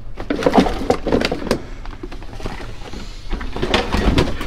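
Discarded items being shifted about in a dumpster: a quick, irregular run of knocks and clatters.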